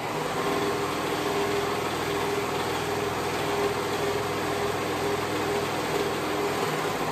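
Brother serger (overlocker) running steadily at speed, sewing a seam.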